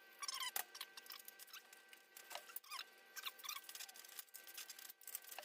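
Lock nuts being run down onto the seat-bracket bolts with a ratcheting wrench: a faint, uneven series of short squeaks with sharp clicks between them.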